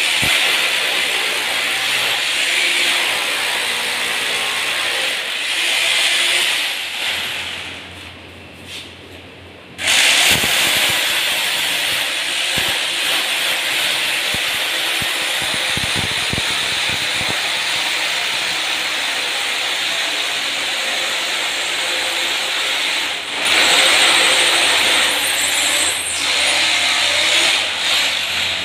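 Corded electric drill boring into the base of a plastered masonry wall, running steadily. It stops about eight seconds in, starts again about two seconds later, and dips briefly once more later on.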